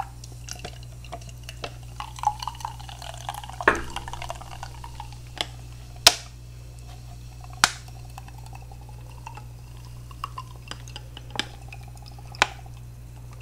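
Cola being poured from a can into a glass: the liquid running and spattering into the glass, with several sharp clicks, the loudest about six and seven and a half seconds in.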